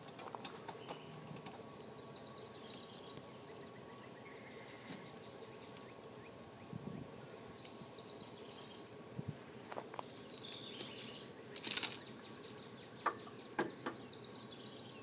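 Steel tow chain clinking and rattling as it is handled and hooked onto a vehicle hitch, with scattered sharp clinks and one louder rattle about three-quarters through. Birds chirp faintly in the background.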